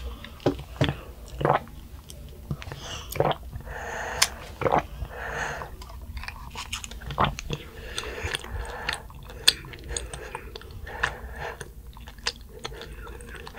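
Black sugar milk bubble tea sucked up through a wide boba straw in repeated slurping sips, with wet clicks of chewy tapioca pearls being chewed in between.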